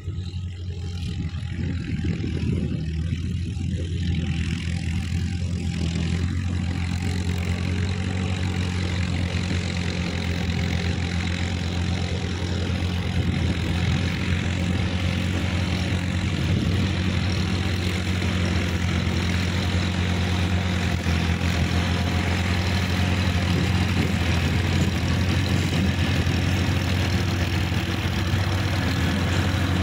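Sonalika DI-50 RX tractor's diesel engine running steadily while pulling a rotary tiller through a field. It grows louder as the tractor comes closer, with a wider rush of noise filling in over the first several seconds.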